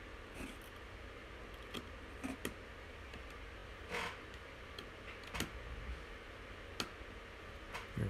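Light clicks and taps of a small screwdriver and screw being worked into a laptop's metal and plastic frame, coming at irregular intervals, over a faint steady hiss.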